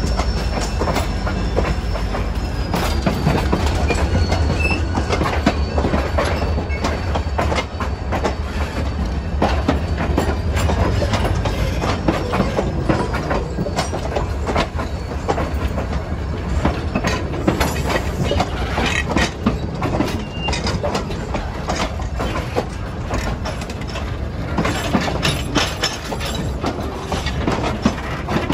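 Budd Rail Diesel Car's diesel engine running with a low rumble as the self-propelled car rolls slowly toward and past, with many clicks from its wheels on the track.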